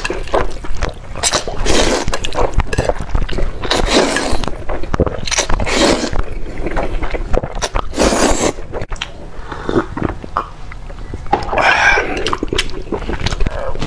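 Close-miked slurping of fried noodles: long, loud, wet slurps about every two seconds, with chewing and mouth smacks between them.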